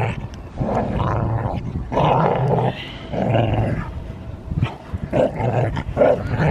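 Dogs play-growling as an adult dog wrestles a puppy: a run of short, rough growls, about five in six seconds, as the adult teaches the pup to submit.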